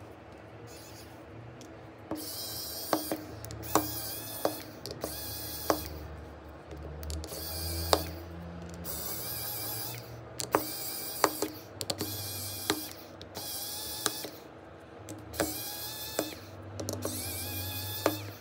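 A small handheld motorised tool running in short bursts of a second or two, starting and stopping repeatedly, with sharp clicks of tools on the phone in between.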